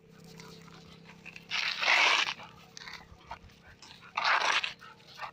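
A dog giving two loud, rough vocal bursts: the first about a second and a half in and lasting most of a second, the second shorter, just past four seconds.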